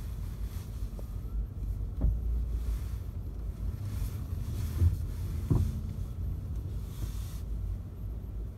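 Freight train cars rolling past on the rails: a low steady rumble with a sharp clank about two seconds in and another around five and a half seconds in.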